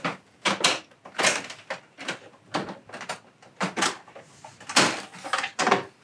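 Plastic side cover of a Mitsubishi Kirigamine FZ wall-mounted air conditioner being unclipped and pulled off: an irregular run of sharp plastic clicks and knocks as its catches release, loudest about five seconds in.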